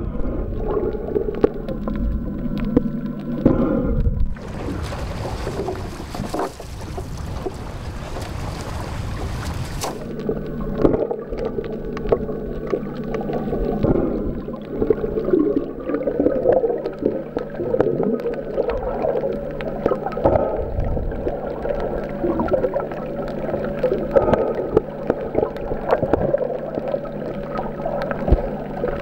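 Muffled underwater sound picked up by the camera under water: water moving and a crackle of bubbles and small clicks, over a steady low hum. From about four and a half seconds in, a loud hiss lasts some five seconds and then stops.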